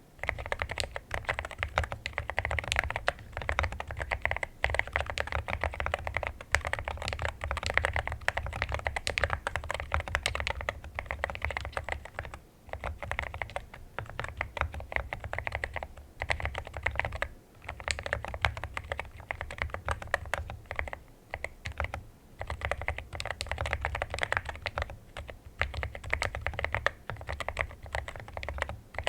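Fast, continuous typing on a mechanical keyboard fitted with Akko Rosewood switches: a dense run of keystroke clicks with a few brief pauses.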